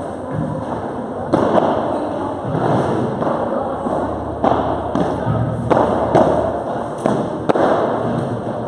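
Padel rally: the ball struck by the players' paddles and bouncing off the court, a sharp knock about every second that echoes around a large hall.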